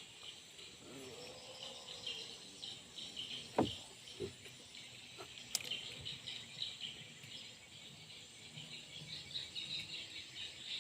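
Insects chirring steadily in a fast pulsing trill, with two dull knocks a little past a third of the way in and a sharp click soon after.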